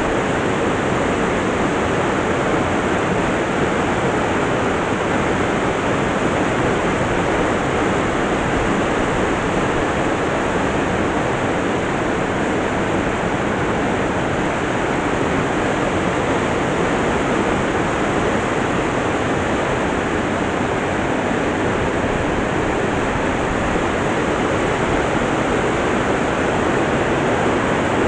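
Waterfall rushing in a steady, even roar, very loud.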